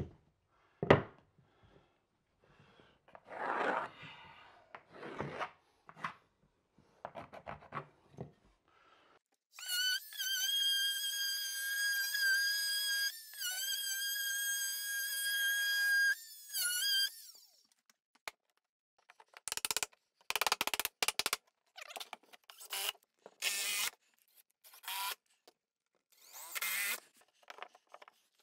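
A sharp knock, then handling and scraping of hardware against the wall; from about a third of the way in a cordless drill/driver runs with a steady high whine for about seven seconds, pausing briefly twice, while driving a fastener through the barn door track. After it stops come short scrapes and clicks of the hardware being worked by hand.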